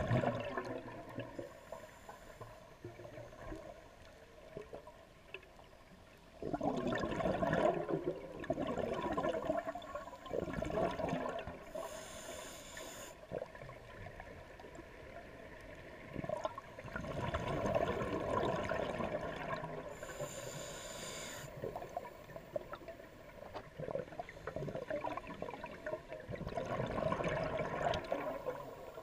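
Scuba diver's regulator breathing underwater: three long bubbling rushes of exhaled air, separated by short hissing inhales drawn through the regulator.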